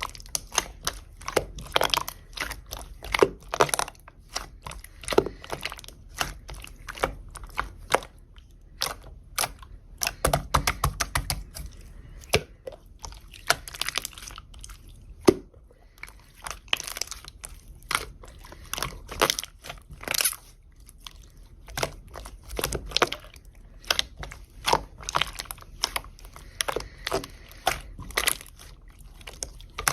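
Clear slime being squished, stretched and pressed by hand, making irregular wet clicks and small pops, several a second with denser flurries now and then.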